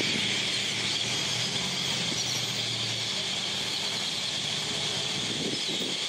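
Dense, steady chorus of a great mass of great-tailed grackles squealing and whistling as they gather to roost. A low vehicle hum from traffic runs underneath for about the first half.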